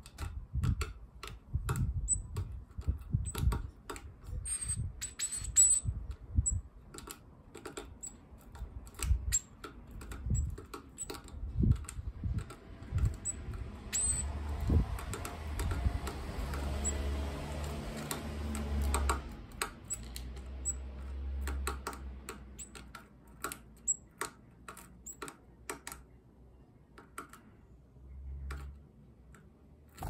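Great tit hammering sunflower seeds with its bill on a feeder tray: irregular sharp taps and cracks as it splits the shells. In the middle there is a soft rushing noise for several seconds.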